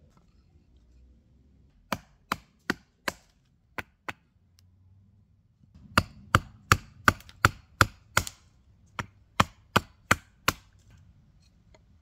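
Small axe chopping a wild cherry spoon blank held on a stump block. Four sharp chops come about two seconds in and two more near four seconds, then a steady run of about a dozen louder chops, roughly three a second, from about six seconds in.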